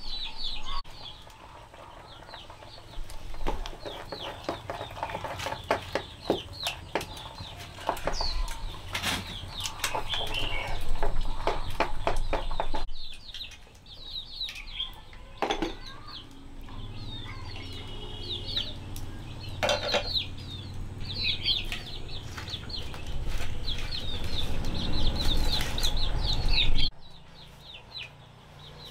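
Chickens clucking and calling, with wings flapping and scattered knocks; the sound cuts off suddenly near the end.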